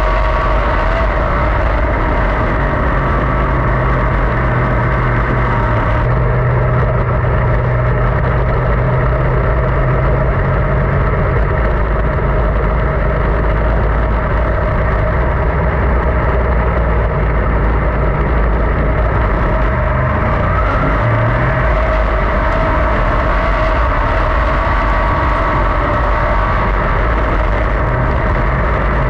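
410 sprint car V8 engine running hard on a dirt oval, heard from inside the open cockpit: a loud, steady drone whose pitch shifts only a little.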